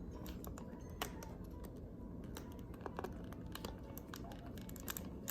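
Faint, scattered light taps and rustles of glossy paper being handled and folded by hand, with a slightly sharper tick about a second in.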